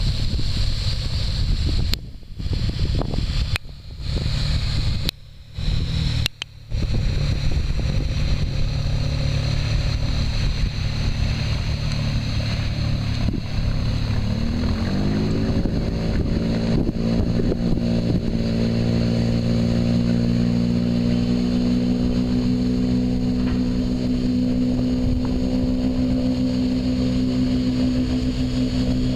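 Engines of an aluminium fireboat running, with wind rumble on the microphone; the sound drops out briefly four times in the first few seconds. About halfway through, the engine note rises in pitch and then holds steady.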